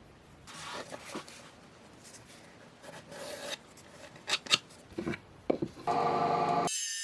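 Rubbing and scraping strokes of hand work on a tool, followed by a few sharp knocks. Near the end a brief machine hum cuts off suddenly and a high steady whine takes over.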